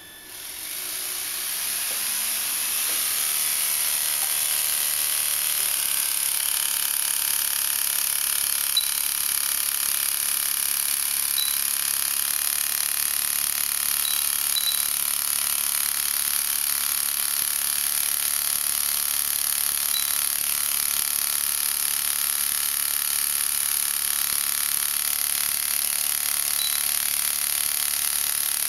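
Flapping-wing nano air vehicle with a 10 cm wingspan powering up, its drive and wings rising over about three seconds to a steady high-pitched buzzing whine as the wings flap at about 40 beats a second to lift it off and hold it aloft.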